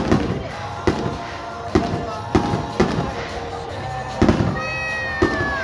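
Aerial fireworks shells bursting overhead in a rapid, irregular series of sharp bangs, about eight of them, with a high whistle gliding downward near the end.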